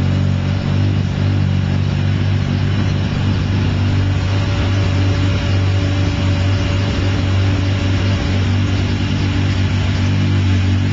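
Mazda 13B Turbo II twin-rotor engine in a 1982 first-generation RX-7 running at a steady idle, with an even, unchanging note and no revving.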